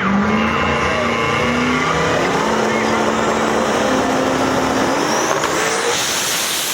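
Turbocharged drag race cars running hard down the track, their engine notes held high with small steps in pitch. A rising whine comes in near the end.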